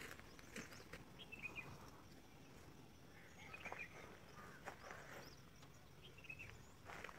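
Near silence with a few faint, short bird chirps spread across it and light clicks.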